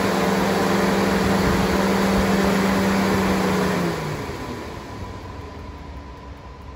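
Twin brushless electric radiator cooling fans from a 2014-and-newer GM pickup, PWM-controlled, running with a steady rush of air and a hum. About four seconds in they are switched off: the hum drops away and the air noise fades as the blades spin down.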